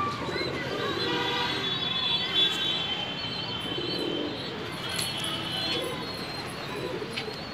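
Domestic pigeons cooing, with higher-pitched bird calls during the first few seconds.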